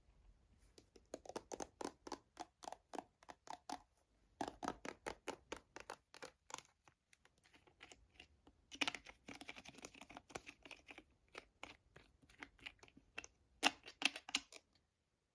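Rapid ASMR tapping on travel-size cosmetic containers, about five taps a second, in four bursts separated by short pauses. The third burst, near the middle, is mixed with a scratchy rustling.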